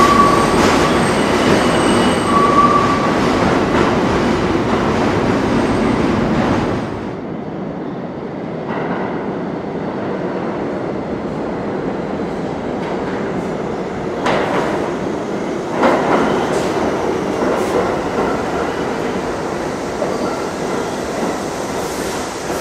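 New York City Subway 1 train pulling out around the tight curve of the South Ferry loop, rumbling loudly with brief wheel squeals. After a sudden change about seven seconds in, another subway train rumbles up and into the station, getting louder as it approaches, with a few sharp clacks from the wheels over the track.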